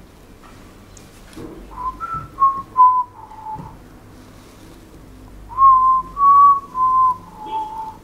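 A person whistling a short tune: two phrases of four or five held notes each, both stepping down in pitch toward their ends, with a pause of about two seconds between them.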